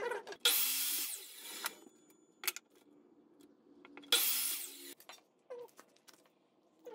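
Sliding miter saw cutting boards in two short bursts, about half a second in and again about four seconds in, each around a second long.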